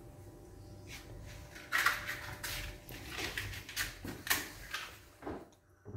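A spatula and frying pan clattering on a gas stove: a run of separate sharp knocks and scrapes, the loudest about two seconds in.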